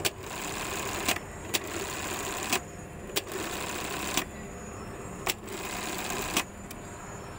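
Industrial Juki button-sewing machine stitching a button onto a garment. It runs in several short cycles of about a second each, and each cycle is marked by a sharp clack.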